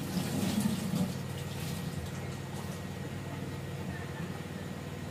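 A steady low hum, with a little extra sound in the first second.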